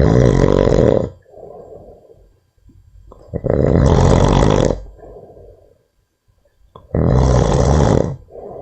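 Heavy snoring: three loud snores on the in-breath, about three and a half seconds apart, each followed by a softer breath out.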